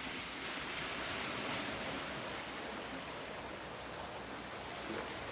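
Steady wash of sea water against a rocky granite shoreline.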